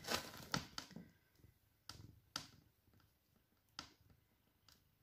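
Faint, scattered light taps and clicks on a cardboard box as it is handled, about seven in all, a little closer together in the first second, the sharpest about two and a half seconds in.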